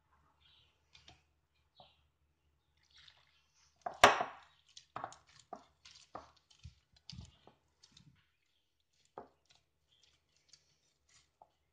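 Hands mixing and kneading wet flour dough in a glass bowl: scattered short squelches and slaps of sticky dough as water is worked in. The loudest is a brief wet splash about four seconds in.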